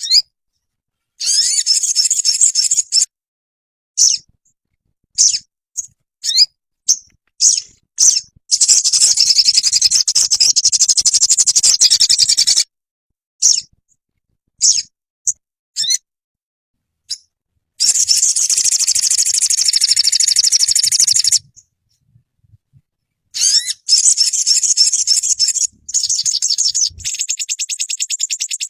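Crimson sunbird (sogon) song: bursts of rapid, high-pitched trilling and short chirps. Long trills come about a third of the way in, again about two thirds in, and near the end. Between them are a few single chirps and abrupt dead silences, as in an edited training recording.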